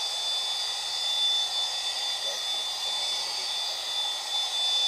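Variable-speed polisher running steadily with a high whine, spinning an abrasive disc over a porcelain countertop to take out a surface scratch.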